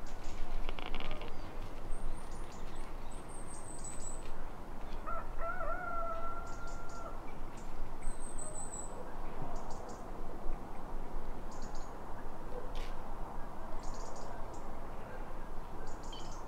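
One long animal call held at a single steady pitch for about two seconds, about five seconds in, over a few short, very high, thin bird chirps and faint brief rustles.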